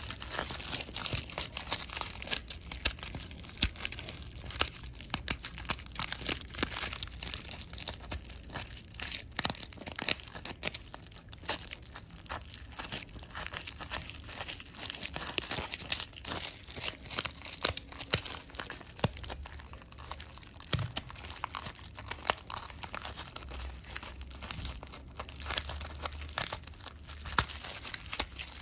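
Seeds being thumbed out of a dried sunflower head: a continuous, irregular crackling and rustling as the seeds break loose from the dry head.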